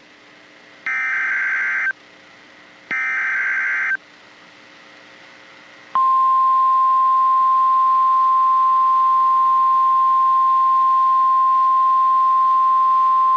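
Emergency Alert System tornado warning: three short bursts of screeching digital header data, about a second apart, start the next alert. About six seconds in, a loud, single-pitched, steady alert tone begins and holds.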